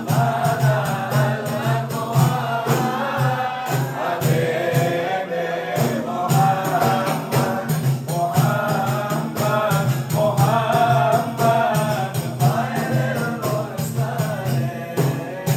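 A group of men singing an Islamic devotional chant (sholawat) to a steady beat of frame drums.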